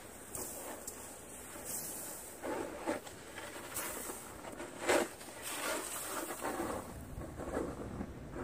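A snow shovel scraping and pushing snow across a mobile home's roof, with loads of snow sliding off the edge onto the drifts below. It comes as irregular scrapes and swishes, the sharpest and loudest about five seconds in.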